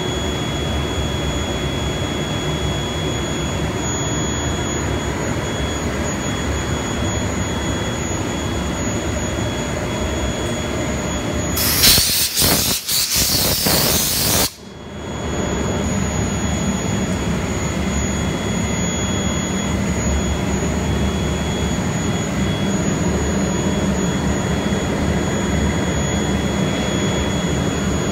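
ShopBot CNC router spindle running with a steady high whine while its 2-inch insert carbide bit cuts the wood board. About twelve seconds in, a loud rushing noise lasts about three seconds and cuts off suddenly.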